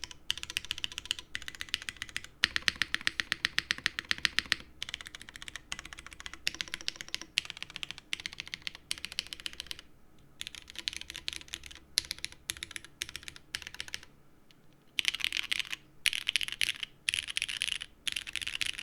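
Typing on a Neo75 CU mechanical keyboard with a copper bottom case, keystrokes clacking in quick bursts with short pauses. The fastest run of keys comes from about two to four and a half seconds in, there is a brief lull a little after two-thirds of the way through, and the typing stops at the end.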